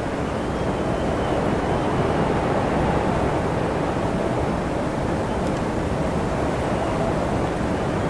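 Wind blowing steadily, a constant rushing noise that neither gusts nor breaks.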